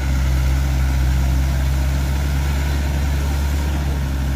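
Off-road 4x4's engine running steadily at a constant pitch, a loud low drone.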